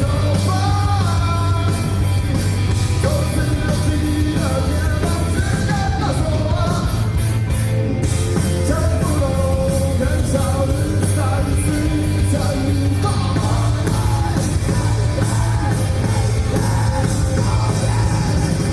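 Rock band playing live, with a singer carrying the melody over a steady, heavy bass.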